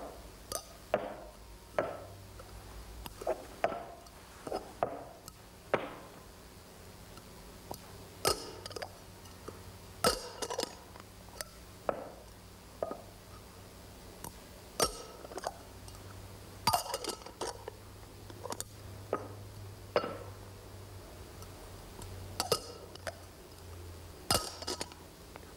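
Chrome magician's cups and bowls clinking against each other and being set down on the table in a cups-and-balls routine: irregular sharp metallic clinks with a brief ring, about one a second.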